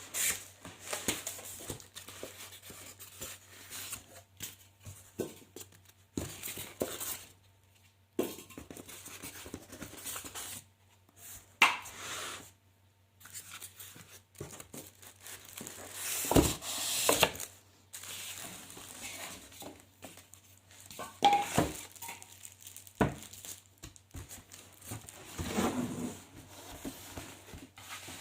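Speaker packaging being unwrapped by hand: irregular rustling, tearing and crinkling of the wrapping, with a few sharp knocks as the boxed speakers are handled. The loudest tears come about halfway through and again a few seconds later.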